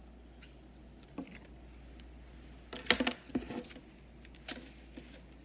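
Handling noises: black work pants and a paper tag being handled, with scattered short rustles and light clicks. The loudest cluster comes about three seconds in, and another brief one about a second later.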